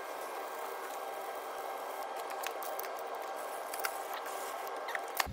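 Aerosol can of brake cleaner spraying in a steady hiss onto a gearbox release bearing and clutch fork, with a few small ticks near the end.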